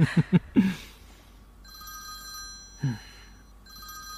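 A phone ringing with a trilling electronic ringtone, two rings about half a second apart, following a few quick bursts of a person's voice.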